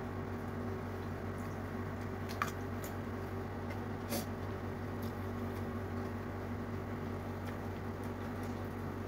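Eating by hand: fingers squeezing rice and fish on a plate and mouthfuls being chewed, with two short sharp clicks about two and a half and four seconds in, over a steady low hum.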